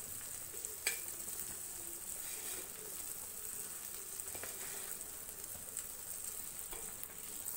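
Onion-tomato masala sizzling faintly in oil in a pan on low heat as gram flour is spooned in over it. A few light clicks are heard, about a second in and again past the middle.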